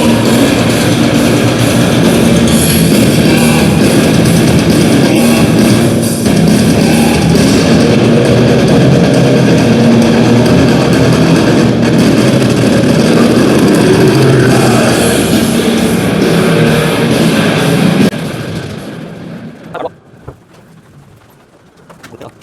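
Loud rock music with electric guitar, played over a speaker as the test sound for a sound-insulation check of an EPS panel wall. It stops about 18 seconds in and fades to quiet.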